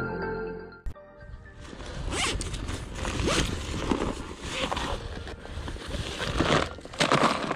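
Background music stops just under a second in, followed by a click. Then come irregular scraping, crunching footsteps about once a second as someone picks their way down a steep, slippery dirt slope, with clothing rubbing against the microphone and a low rumble of handling noise.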